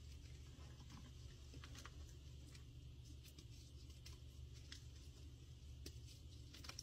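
Faint crunching and crumbling of chalky chunks, gym chalk and baking soda coated in cornstarch, squeezed and broken apart by hand, giving scattered small crackles over a low steady hum.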